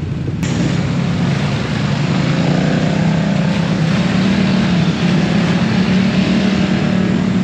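ATV engine running steadily, with a constant hum and a rushing noise over it. The sound changes abruptly about half a second in.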